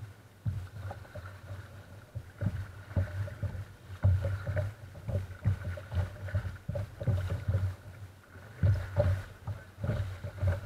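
Water slapping and sloshing against the plastic hull of a sit-on-top kayak as it is paddled through light chop, picked up by a camera mounted on the bow: irregular low thumps with sharper splashes.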